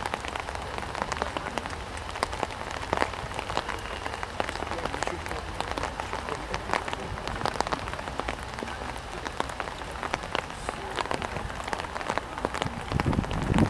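Rain pattering: a steady hiss full of irregular small taps of drops landing near the microphone. A low rumble comes in near the end.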